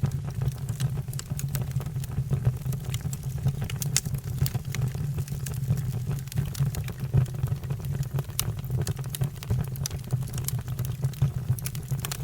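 Fire crackling, with many sharp pops and snaps over a steady low roar.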